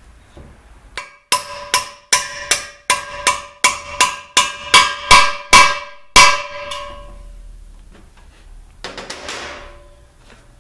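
Hammer blows on a driver seating a repair sleeve into the front servo bore of a Ford 5R55S transmission case: about fourteen sharp, ringing metallic strikes at a steady two to three a second, getting louder, with the last one after a short pause about six seconds in.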